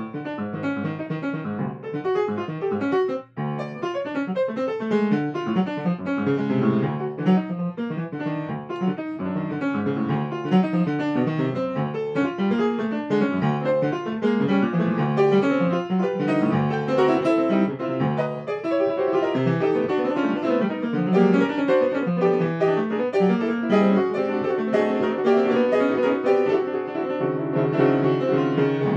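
Yamaha grand piano played in free improvisation, a dense, continuous stream of notes in both hands. There is a brief break about three seconds in, and it settles into held low chords near the end.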